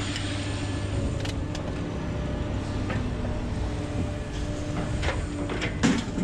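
A vehicle engine idling with a steady drone, and a loud metal clank near the end as a piece of scrap steel lands on the pile.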